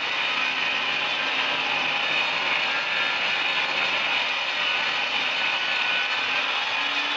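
A woodworking power tool running steadily, a continuous even mechanical noise that holds the same level throughout.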